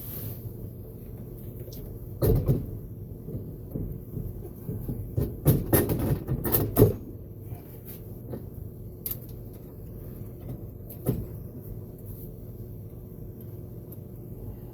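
Scattered knocks and clatters of parts and tools being handled during reassembly of a radial arm saw motor: one about two seconds in, a quick cluster around the middle, and a single knock later. A steady low hum sits underneath.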